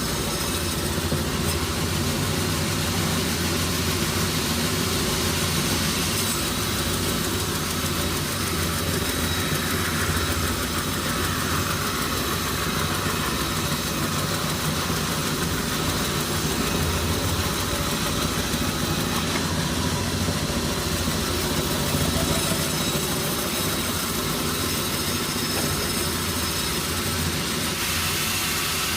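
An engine running steadily at a constant speed, a continuous mechanical drone.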